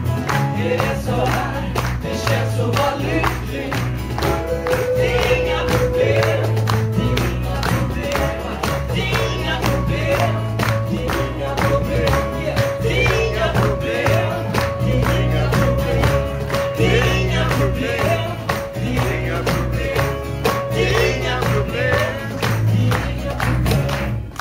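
Live band performance: two men singing a duet into microphones over acoustic guitar, electric guitar and a cajón keeping a steady beat. The song breaks off at the very end.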